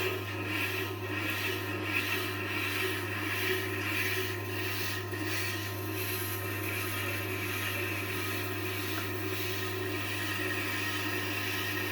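Tormek T-8 sharpening machine running with a steady motor hum while a kitchen knife blade is drawn against its turning stone. The blade scrapes in strokes about once a second for the first five seconds, then the scraping goes on more evenly.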